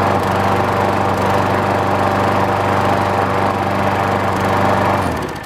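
Primer-bulb walk-behind lawn mower's small engine running steadily after a one-pull cold start, then shut off about five seconds in and winding down.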